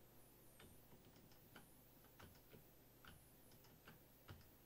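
Near silence with faint, irregularly spaced clicks of a computer mouse and keyboard, one a little louder near the end.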